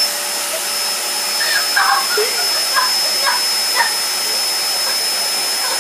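Canister vacuum cleaner running steadily, with the floor head taken off the wand: a constant hiss of suction and a high whine. A dog snapping at the open wand makes several short, high noises between about one and four seconds in.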